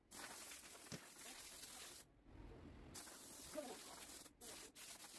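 Near silence: a faint steady hiss of room noise that drops out for about a second midway and briefly twice more near the end.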